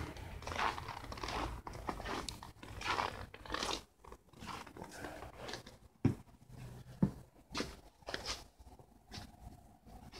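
Footsteps crunching in snow, an uneven run of short crunches about every half second to second, with two dull thumps about six and seven seconds in.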